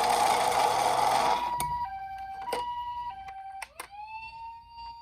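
Toy ambulance minicar's electronic two-tone 'pi-po' siren. After a loud rushing noise that lasts about the first second and a half, the siren alternates between a higher and a lower tone about every half second, with sharp clicks in between. Near the end a single tone slides up and holds steady.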